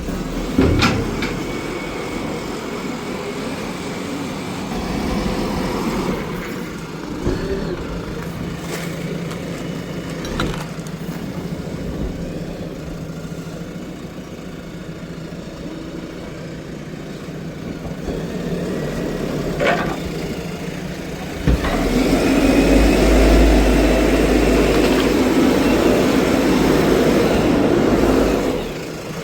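JCB backhoe loader's diesel engine running steadily, with a few sharp knocks along the way, then revving much louder under load for about seven seconds near the end before dropping back.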